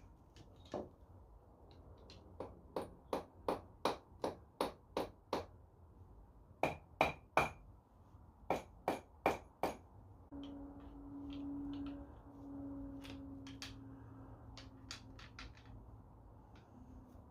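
Sharp metallic knocks, about three a second, in three runs, from tools worked on a motorcycle engine; a low steady hum with lighter clicks follows near the end.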